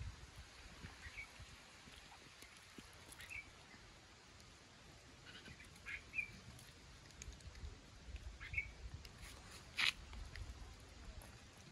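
Faint short, high animal calls, one every two to three seconds over a low rumble, with a sharp click near the end.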